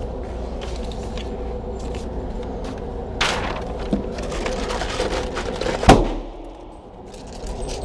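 A single very loud handgun shot about six seconds in, sharp and echoing, over a steady background hum, with a few lighter knocks a couple of seconds before it.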